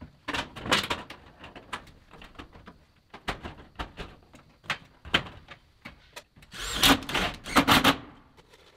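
Irregular sharp clicks and knocks of hand-tool work, with a louder run of strikes in the last two seconds or so.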